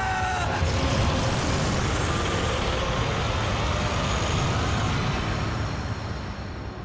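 Loud, dense rushing noise over a low rumble, with a few faint held tones, fading near the end: trailer sound design.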